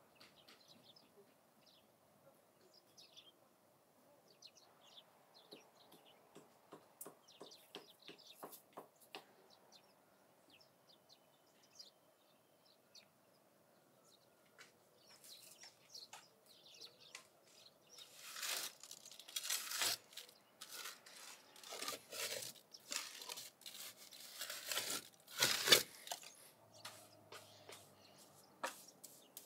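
Outdoor garden sound with faint bird chirps and scattered light clicks. In the second half comes a run of louder rustling and scraping noises.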